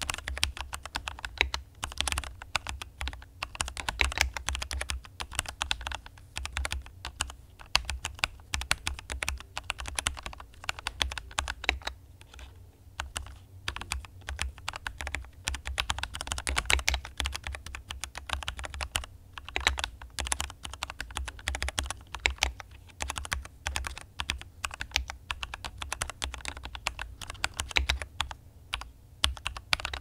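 Continuous fast typing on a Keychron K6 Pro mechanical keyboard with Keychron Red linear switches and PBT double-shot OSA-profile keycaps: a dense, irregular stream of key clacks, thinning briefly about twelve seconds in.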